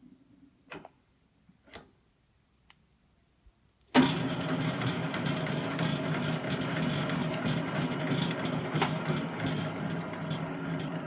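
Hobart H600 gear-driven planetary mixer. Two clicks as the black-knobbed lever is worked while the machine is stopped. About four seconds in, the mixer starts suddenly and runs steadily with its dough hook turning, a mechanical whir with light ticking that eases off a little near the end.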